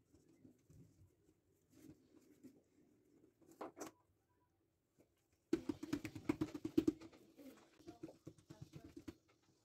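Hands patting and pressing soft oiled dough flat on a wooden board, with a dense run of quick soft pats from about halfway to near the end. A faint low cooing runs underneath.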